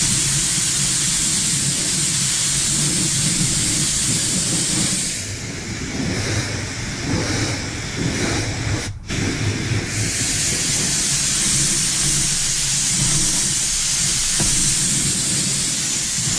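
Compressed-air spray gun spraying upholstery glue, a steady loud hiss with a brief break about nine seconds in.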